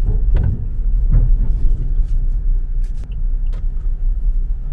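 Toyota Fortuner driving, heard from inside the cabin: a steady low rumble with a few scattered knocks as its tyres roll over a steel ferry ramp.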